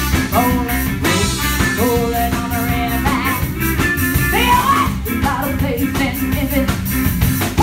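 Live band playing: a woman singing over electric guitar, drums and trumpet.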